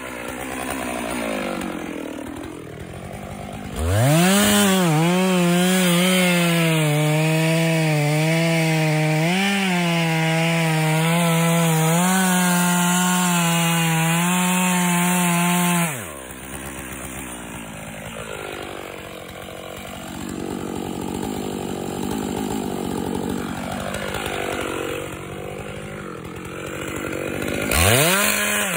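Two-stroke chainsaw revving up to full throttle and cutting into wood for about twelve seconds, its pitch wavering as it works, then dropping back to idle. It revs up again near the end.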